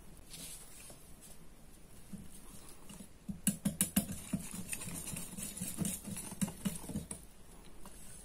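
Wire whisk beating pancake batter in a glass bowl. It starts about three seconds in with a fast run of sharp clicks as the wires strike the glass, loudest at first, and thins out about a second before the end.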